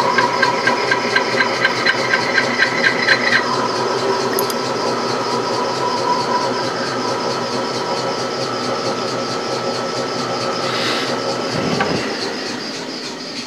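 Metal lathe running under a cut as a carbide tool turns a small recess into a spinning steel-grey shaft. A regular ticking, about four a second, stops about three seconds in. Near the end there is a brief rush of noise, then the sound eases off as the tool comes out of the cut.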